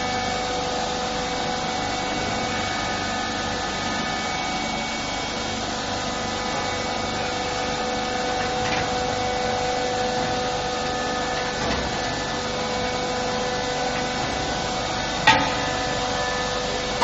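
Steel wheel rim roll-forming machine running, its rollers turning and rubbing against the steel rim with a steady grating hum that holds several steady tones. One sharp knock about fifteen seconds in.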